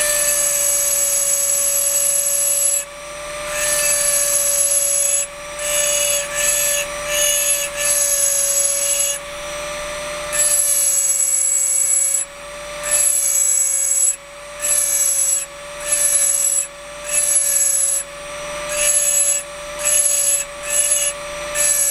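Rotary engraving drill with a ball-shaped diamond burr grinding into a water-lubricated crystal glass vase. The motor runs with a steady whine while the burr cuts in repeated short strokes of about half a second to two seconds, a high scratchy grinding that comes and goes as it touches and lifts off the glass.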